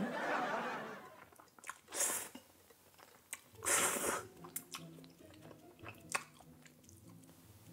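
Close-up mouth sounds of eating a toasted bread and Spam piece with stretchy melted mozzarella: biting and chewing, with a few short crunchy bursts about two and four seconds in.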